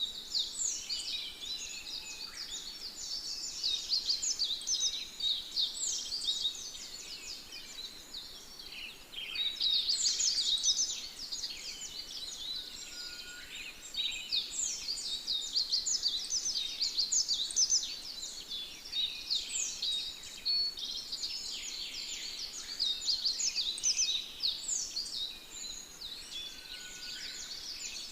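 Dense chorus of many small birds chirping rapidly, many overlapping short high calls, rising and falling in waves.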